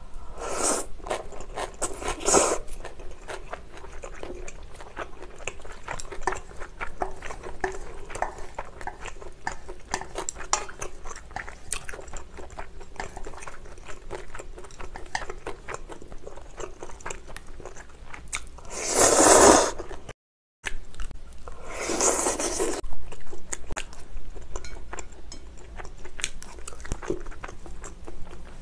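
Close-miked eating of spicy chewy bibim noodles: steady chewing and biting with many small wet mouth clicks, broken by a few louder slurps of noodles, the loudest about two-thirds of the way through.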